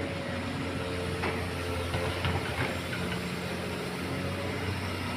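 Doosan excavator's diesel engine running steadily, with a few faint knocks about one to three seconds in.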